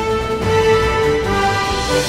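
Background music: held notes that change every half second or so over a steady bass.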